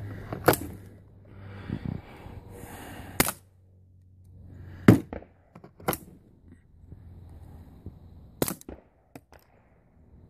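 Suppressed GSG 1911-22 pistol firing subsonic .22 rounds through a SilencerCo Sparrow suppressor, mixed with clicks from the gun being handled to clear a jam: about seven separate sharp cracks a second or more apart, the loudest about five seconds in and a quick pair about eight and a half seconds in.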